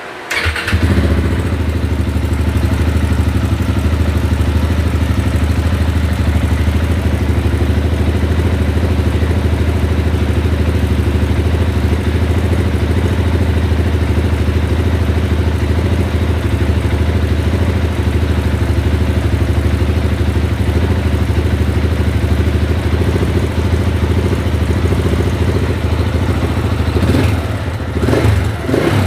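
2010 KTM 690's single-cylinder engine catching at the start and idling steadily, with a couple of throttle blips near the end. The owner calls the bike's fuel pump bad.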